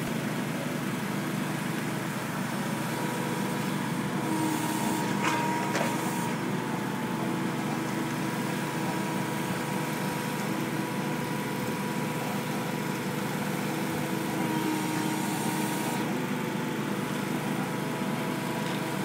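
An 8-tonne 360 excavator's diesel engine runs steadily while it drives a hydraulic pipe-pushing attachment shoving 280 mm HDPE pipe. Two brief sharp knocks come about five to six seconds in.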